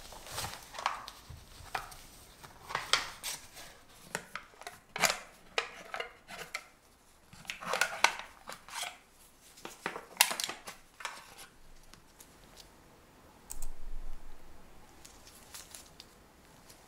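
A knife scraping against a disposable aluminium foil loaf tin, with the foil crinkling, as the tin is worked loose from a baked pastry basket. It comes as clusters of sharp scrapes and clicks, then grows quieter after about eleven seconds, with one short burst near the end.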